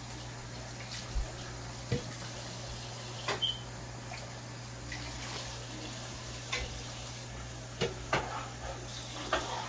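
Dishes being handled and washed at a kitchen sink: a few scattered clinks and knocks over a steady low hum.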